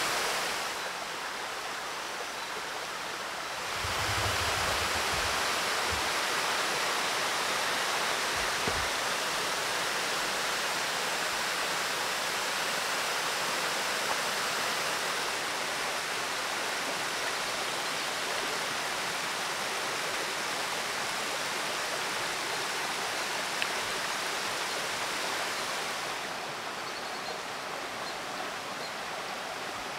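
Rushing water from a small waterfall and stream, a steady even noise that grows louder about four seconds in and drops back a little near the end.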